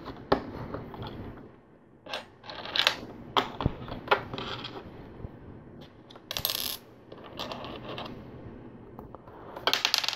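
LEGO plastic bricks clicking and clattering against each other as hands pick pieces from a loose pile and press them together: a string of short, sharp clicks with a few brief rattling bursts.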